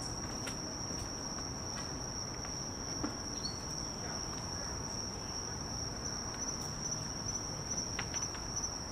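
Night insects, crickets, keep up one steady, unbroken high-pitched trill, with a few faint ticks now and then.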